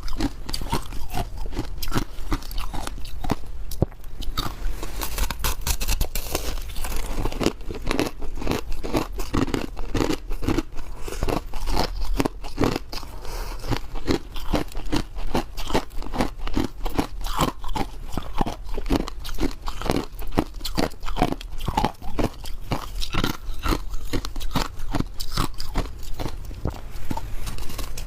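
Ice being bitten and chewed: rapid, unbroken crunching, several cracks a second.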